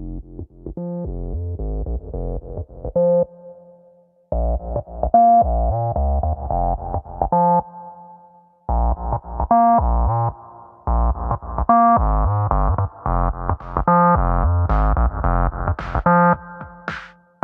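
Background music: synthesizer and electric-piano-style keyboard chords over a steady low beat, dropping out briefly twice.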